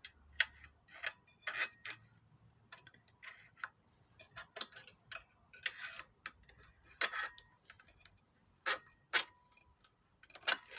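KW5000 heavy-duty stapler being reloaded with longer 17 mm staples and set higher: a dozen or so sharp, irregular metal clicks and clacks, some with a brief metallic ring.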